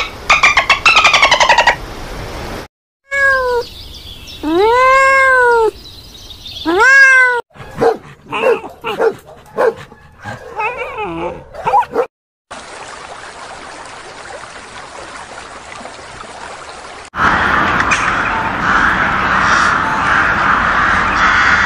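A run of animal sounds cut one after another. First, dolphin whistles rising and falling over a fast click train. Then three drawn-out cat meows, short dog barks and yelps, a few seconds of steady hiss, and near the end a flock of crows calling together.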